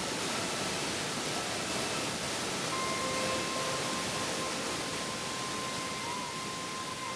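Tad Sae waterfall's low cascades rushing steadily over rock pools, an even wash of water noise. Faint held tones of background music come in about three seconds in.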